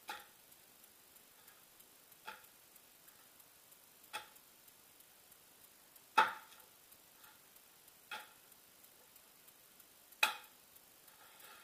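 Short sharp clicks, six of them at an even pace about two seconds apart, the loudest about six and ten seconds in.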